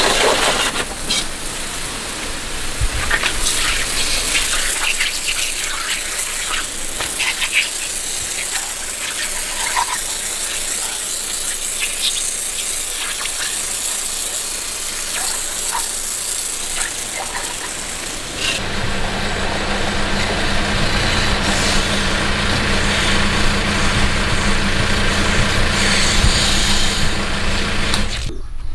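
Pressure washer jet spraying onto a scooter's plastic body panels and a rubber floor mat, a steady hiss of water. About two-thirds of the way through the sound changes: a steady low electric-motor hum comes in under the water.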